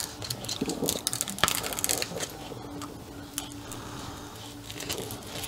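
Craft knife picking and scraping at tape on the plastic cover sheet of a diamond-painting canvas, making scattered light clicks and crinkles.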